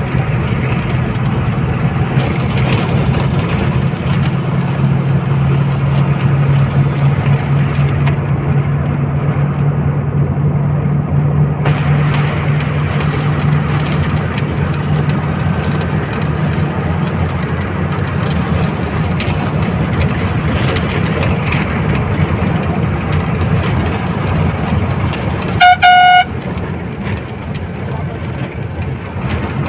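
Old Tata bus's diesel engine running on the road, heard from inside the bus along with road noise; its hum fades after about the middle. A loud horn blast sounds once, briefly, near the end.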